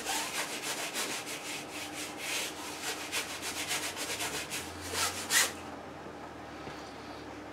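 Flat bristle brush scrubbing oil paint onto a stretched canvas in quick back-and-forth strokes, a few strokes a second, the last ones the loudest, stopping about five and a half seconds in.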